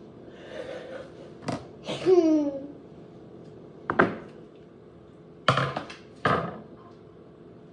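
Several sharp knocks and clacks of slime-making supplies being handled, with a short falling vocal sound about two seconds in.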